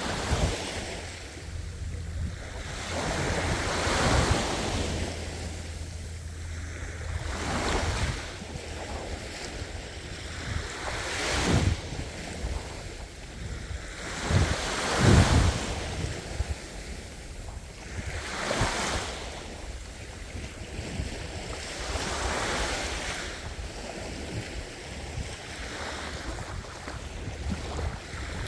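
Ocean waves breaking on a shore, one surge of surf every three to four seconds, each swelling and washing back. The heaviest breaks come near the middle.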